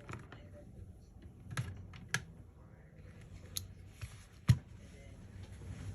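Scattered sharp clicks and taps of small repair tools and phone parts handled on a workbench, about six in all, the loudest near the end.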